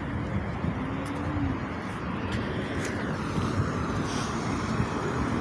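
Road traffic: passing cars making a steady wash of noise.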